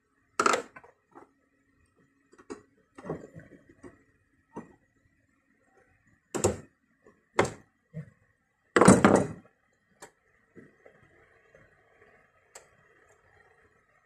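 Irregular knocks and clunks of tools and car parts being handled during a fuel pump replacement: about half a dozen sharp knocks, the loudest about nine seconds in, with small clicks and taps between them.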